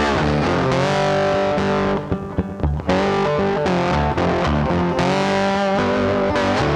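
Background rock music led by distorted electric guitar, which thins out briefly about two seconds in.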